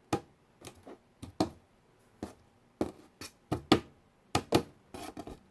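Small access panel over the water heater being worked loose by hand after its screws are out: a series of irregular clicks, taps and knocks.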